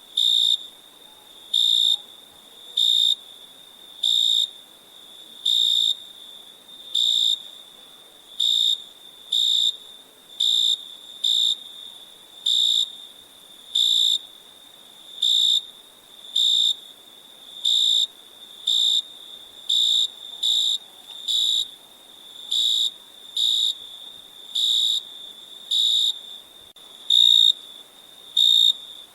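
Crickets chirping: short, high-pitched chirps roughly once a second, sometimes in quick pairs, over a faint steady trill from more crickets.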